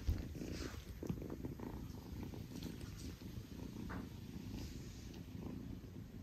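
A kitten purring steadily in a low, fast-pulsing rumble, with a few faint soft rustles.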